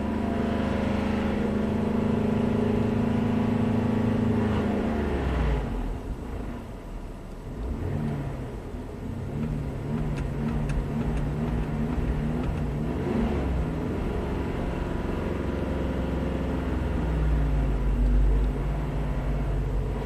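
2009 Chevy Traverse's 3.6-litre direct-injection V6 running under load, heard from inside the cabin: engine speed holds steady, drops about five seconds in, then rises and falls again, with a big rattle from the engine. The engine is running with so little oil that none shows on the dipstick, which is starving the variable valve timing and making the cam angles wander.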